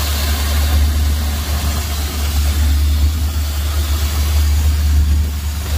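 Ford 460 big-block V8, fed by a Holley Sniper throttle-body EFI, idling steadily with a strong low drone.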